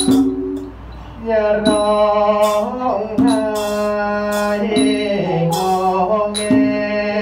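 A Thai monk singing a lullaby in the slow, drawn-out thet lae sermon style, holding long notes that glide between pitches, over a steady low note. Bright metallic strikes ring out about every second or so. The singing starts after a short lull about a second in.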